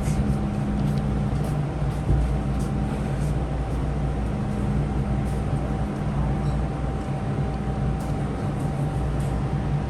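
Ride noise inside a moving MTR electric train: a steady low rumble of wheels on track, with a constant hum and a thin steady whine from the traction motors at an even speed.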